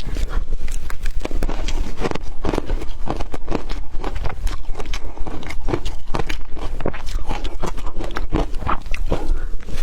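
Close-miked eating sounds of a person chewing big mouthfuls of food: a dense run of short smacks and crunches, several a second.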